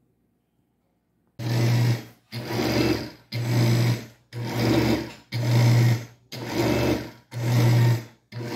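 Oster countertop blender pulsed about seven times, roughly once a second, starting about a second and a half in. Each pulse is a short run of the motor churning a thick purée of Haitian epis seasoning (garlic, onion, celery, peppers, herbs and oil).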